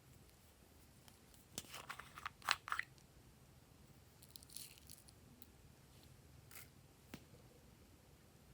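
Slime being pressed and pulled by hand, giving off a quick cluster of sticky crackling pops a second and a half in, then a few scattered pops.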